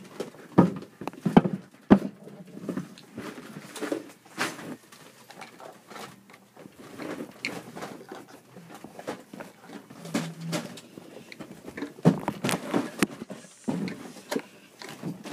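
Irregular knocks, clicks and rustling of objects being handled and moved, heaviest near the start and about twelve seconds in.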